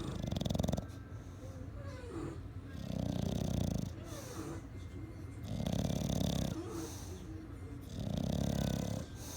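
English bulldog snoring, four regular snores about every two and a half seconds, each about a second long, with a faint squeaky whistle on the breaths between them.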